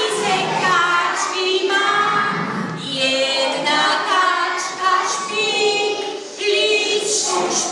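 A group of voices singing a simple lullaby without accompaniment, in slow, held notes.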